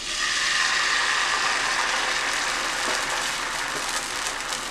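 Appam batter sizzling as it is poured from a ladle into a hot, oiled ceramic non-stick pan; the sizzle starts at once and slowly dies down.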